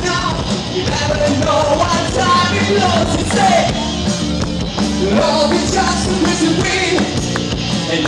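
A rock band playing live: electric guitars and drums, loud and continuous.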